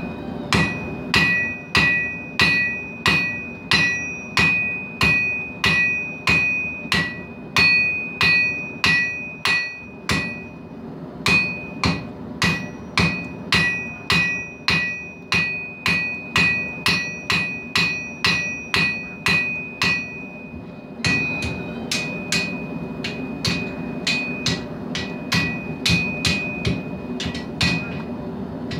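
Hand hammer forging hot steel held in tongs on a steel anvil: steady blows about two a second, each with a bright anvil ring. The blows pause briefly about ten seconds in and again about two-thirds of the way through, then come lighter and quicker near the end.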